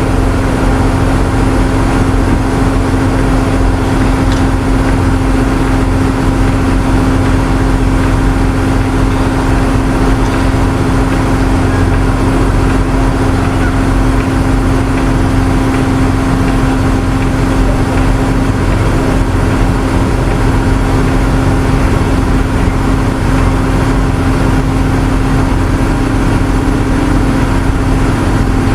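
A vehicle engine running steadily at constant speed with a strong, even hum that does not change.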